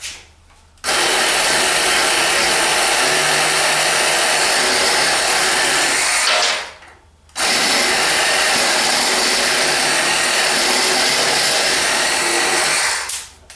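Small cordless reciprocating saw (a battery 'little hacksaw') cutting through cedar wood in two long, steady runs, stopping for about a second roughly six seconds in.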